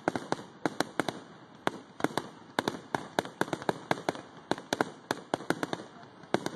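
Fireworks going off: a fast, irregular run of sharp bangs and pops, several a second, over a steady background hiss.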